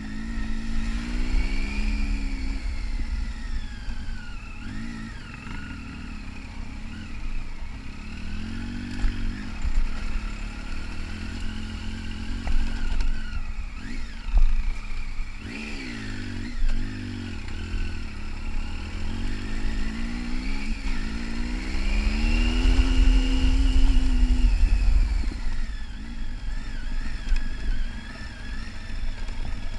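Triumph adventure motorcycle engine under way on a dirt track, its revs rising and falling repeatedly as the throttle is opened and closed, with the longest, loudest pull about three quarters of the way through. A low wind rumble on the microphone runs under it.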